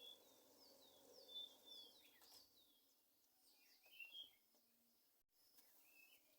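Faint bird calls over quiet background: a run of short, falling chirps in the first two seconds, then a few scattered chirps later on.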